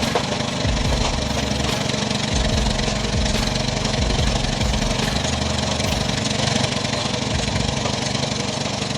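An engine running steadily with continuous mechanical noise, the sound of a working machine.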